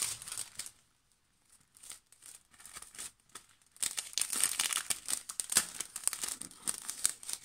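Clear plastic cellophane packaging sleeve crinkling as it is handled and a die-cut piece is slid out of it. It crinkles briefly at first, goes almost quiet with a few light ticks, then crinkles steadily and busily for the last three seconds or so.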